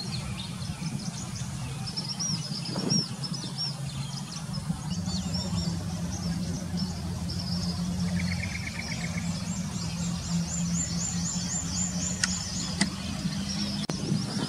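Small birds chirping and trilling in high, quick repeated notes, densest about ten seconds in, over a steady low hum. A short buzzy trill comes about eight seconds in.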